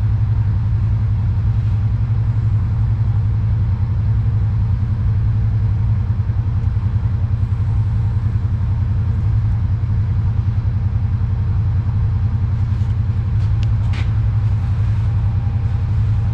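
An engine idling steadily, a loud low hum with an even pulse. A few light clicks and taps come near the end.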